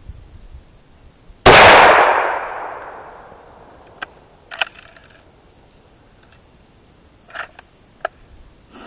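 A single shot from a .303 British Lee-Enfield rifle firing full metal jacket rounds: a loud crack about one and a half seconds in, with a long echo dying away over about two seconds. A few short metallic clicks follow as the rifle's bolt is worked.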